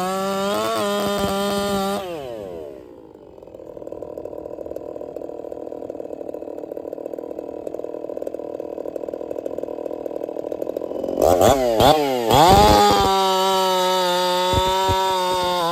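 Echo chainsaw at full throttle cutting through a log with a test .325 chain. About two seconds in the throttle is released and the engine falls to a quiet idle. Near the eleven-second mark it is revved in a few quick blips, then held at full throttle for the next cut.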